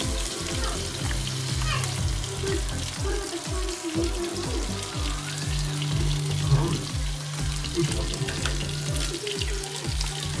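Beaten egg poured onto bitter gourd frying in a pan, sizzling steadily. Background music with a steady low beat plays throughout.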